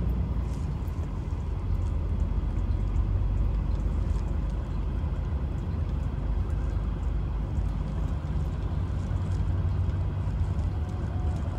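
Truck driving on the road, heard from inside the cab: a steady low engine and road rumble.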